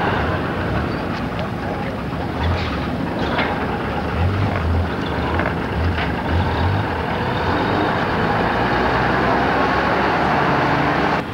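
Vintage Fordson lorry's engine running at low speed, with a pulsing low rumble, as it reverses down the ramps off a car-transporter trailer.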